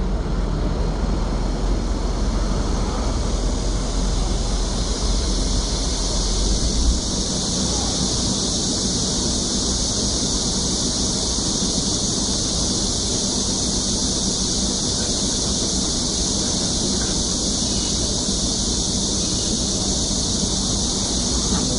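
Steady high-pitched chirring of night insects, with a low rumble underneath that fades out about seven seconds in.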